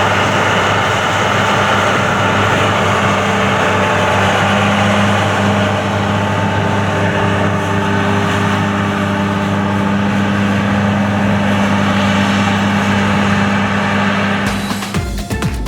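Large diesel farm machine running steadily under load, a constant low hum with a broad mechanical rush over it. About a second before the end, electronic music with a beat cuts in.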